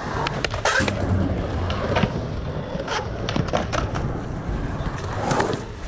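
Skateboard wheels rolling on the concrete of a pool bowl, a steady low rumble, with several sharp clacks of board and wheels striking the concrete.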